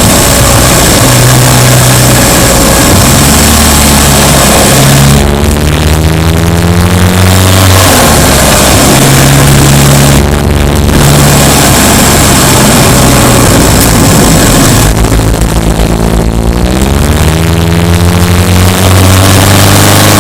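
Subaru Impreza Sport's flat-four engine pulling the car along, its pitch climbing twice as it accelerates, about five seconds in and again near fifteen seconds in, over steady road and wind noise.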